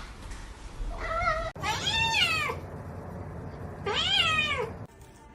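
Domestic cat meowing three times: a short call about a second in, then two longer meows that rise and fall in pitch.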